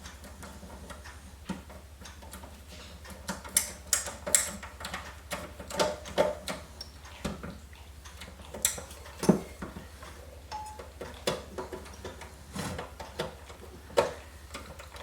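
Irregular metallic clicks and knocks from handling screws and parts against a steel computer case while fitting the power supply, over a steady low hum.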